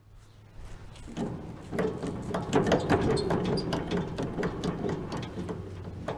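Rapid metallic clattering and ratcheting from an old Massey Ferguson square baler's mechanism as it is tried, starting about a second in and going on steadily.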